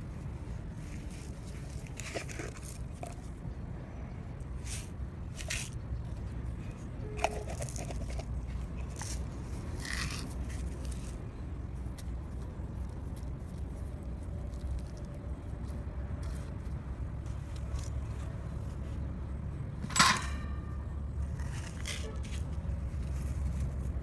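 Light clicks and taps of hands handling a wire fan-guard bird trap propped on a stick, over a steady low rumble. One loud sharp clack with brief ringing comes about twenty seconds in.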